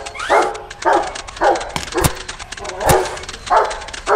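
Dog barking over and over, a bark about every half second to second, with two sharp clicks in the middle.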